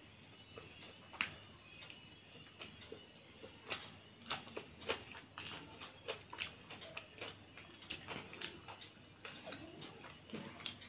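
A person eating rice by hand: faint, irregular clicks and smacks of chewing and of fingers working pulao on a plate, several a second at the busiest.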